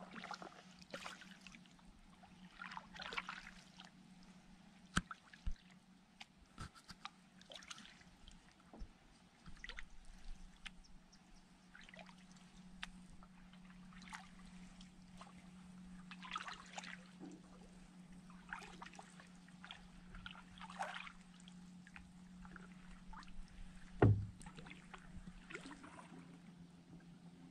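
Canoe paddle strokes in calm lake water: soft swishes and drips every few seconds, with scattered sharp clicks and one louder knock against the canoe near the end. A faint steady hum runs underneath.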